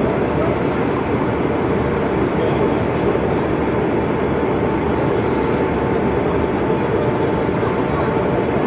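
Steady din of a busy exhibition hall: a crowd of visitors talking indistinctly, blended into an even background noise, with a faint steady high hum running underneath.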